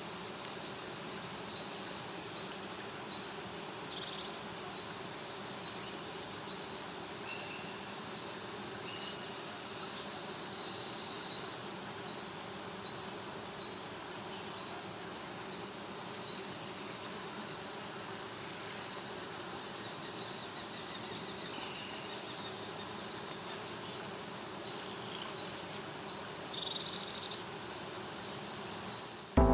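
Dawn chorus of woodland birds: one bird repeats a short high chirp about once a second, others call now and then, and a few louder, sharper calls come near the end, over a steady low hum.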